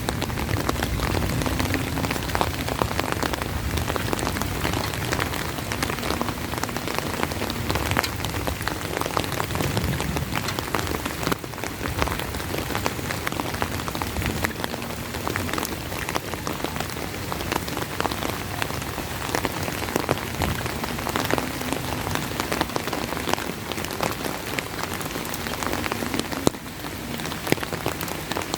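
Heavy, steady rain, with many sharp drops striking close to the microphone. A low rumble of thunder fades out over the first ten seconds or so.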